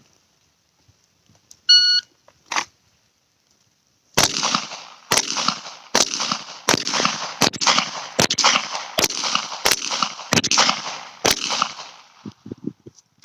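A shot timer beeps once, then ten shots from a Glock 34 9mm pistol with Federal HST 124-grain +P rounds, fired at a steady pace about one every three-quarters of a second, each ringing out briefly. The ten rounds are done about 9.6 s after the beep by the timer.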